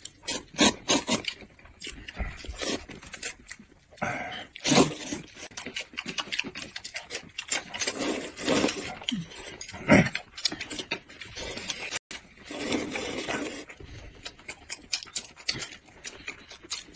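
Slurping of hot and sour sweet potato glass noodles (suanla fen) eaten from cups with chopsticks, in a run of short, irregular slurps.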